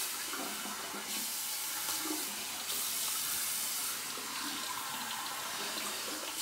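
Bathroom sink tap running steadily while water is splashed onto the face to rinse it after a shave.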